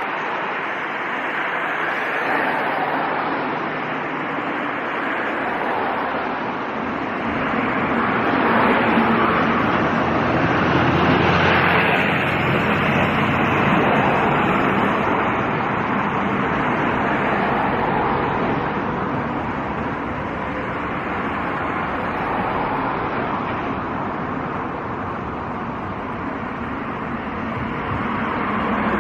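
Jet airliner engines roaring at a distance, a steady rushing noise that swells about a third of the way in and then slowly eases.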